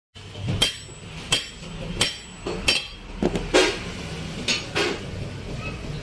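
Hammer blows on steel as a motorcycle crankshaft flywheel half is driven onto its crank pin: four evenly spaced strikes about two-thirds of a second apart, then a few more uneven strikes.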